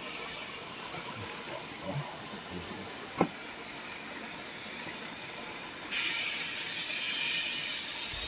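Steady outdoor background hiss with a few faint soft rustles and one sharp click about three seconds in. About six seconds in, the hiss abruptly turns louder and brighter.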